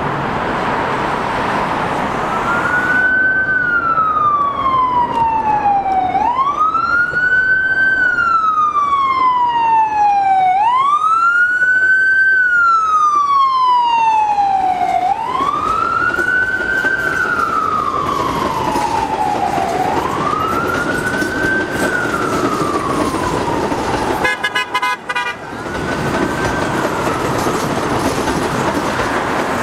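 An emergency vehicle's siren wailing, its pitch rising and falling about every four and a half seconds. It breaks off near the end, leaving the steady running noise of a subway train on an elevated track.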